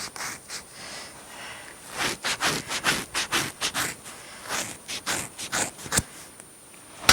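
Scissors snipping through long synthetic wig hair: a run of quick cuts, several a second, through the middle, then one sharp click near the end.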